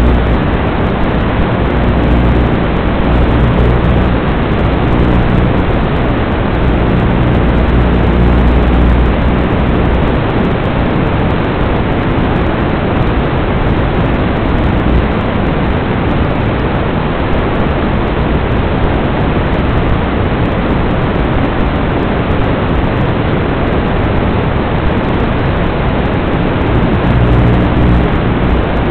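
Audio carried on an FPV quadcopter's analog video link in flight: a loud, steady rushing hiss, with a low hum under it for about the first ten seconds and again near the end.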